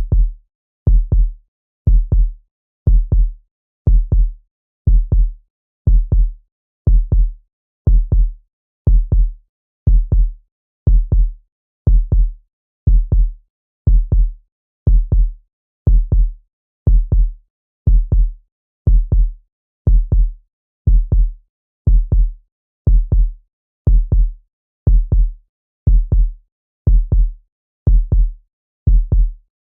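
Heartbeat sound effect: a steady, low double thump (lub-dub) about once a second, with silence between beats.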